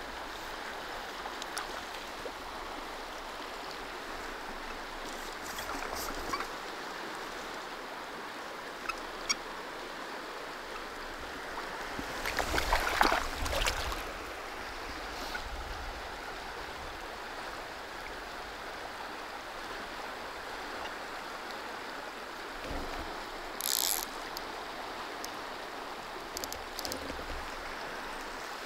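Fast river riffle rushing steadily over rocks, with a brief louder burst of splashing noise about halfway through.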